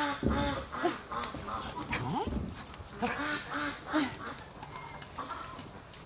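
Dog whining in short, repeated pitched calls, with a couple of low thumps.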